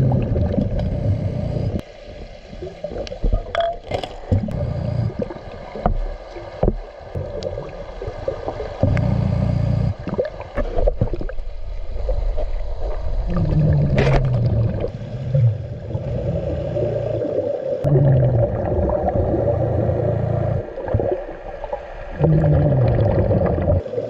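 A scuba diver breathing through a regulator underwater: rumbling bursts of exhaled bubbles every few seconds, with low groaning tones that fall in pitch, and scattered knocks from handling gear.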